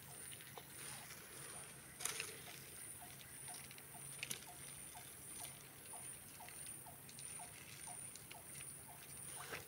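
Faint rhythmic high-pitched insect chirping, about two pulses a second, with light rustling and a few soft clicks in dry leaves.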